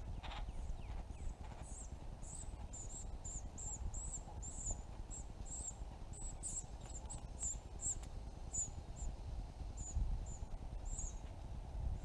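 Red-bellied woodpecker fledgling giving high, thin begging calls, repeated about twice a second, with wind rumbling on the microphone.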